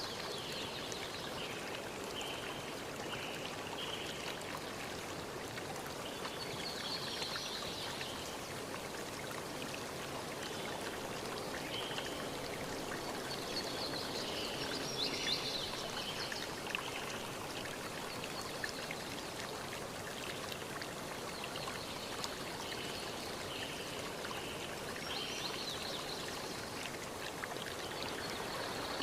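Waterfall water rushing and splashing steadily, with short high chirps recurring at intervals.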